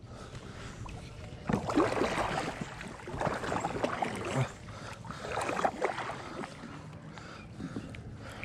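Three spells of noise, each about a second long, as a hooked catfish is fought from a kayak on baitcasting tackle: water splashing at the surface and the reel being cranked.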